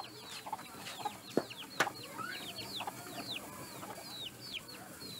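Chickens cheeping: a rapid run of short, high, falling peeps, several a second. Two sharp knocks come about a second and a half in.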